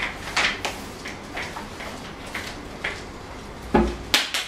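Light rustles and taps of paper and a book being handled on a table, then a heavy thump near the end followed by two sharp knocks.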